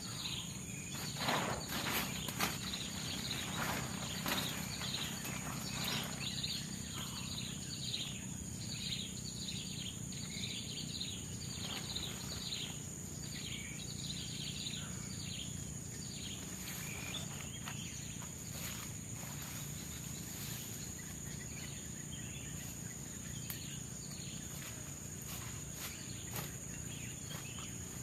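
Tropical forest ambience: a steady high-pitched insect drone, with a bird repeating a short falling call over and over through the first half, and scattered sharp knocks, most of them in the first few seconds.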